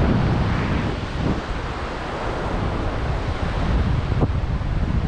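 Wind buffeting the microphone in uneven gusts, over the steady wash of surf breaking on the beach.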